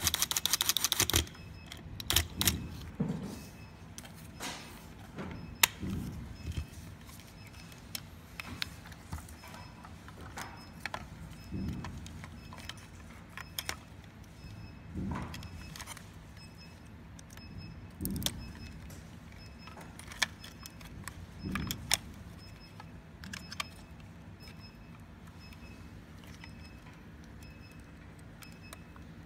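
Clicks, taps and knocks of a small tool and plastic housing parts being handled while an infusion pump is taken apart, with a quick rattle of many clicks in the first second and scattered clicks and soft knocks after.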